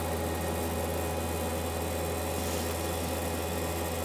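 Steady low hum with fan-like noise from a running kitchen appliance.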